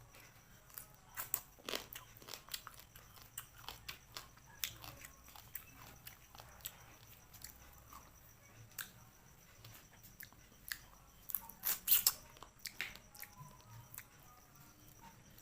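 Close-miked eating sounds: a person chewing and biting, with many short, sharp crunches and clicks. The loudest cluster comes about twelve seconds in.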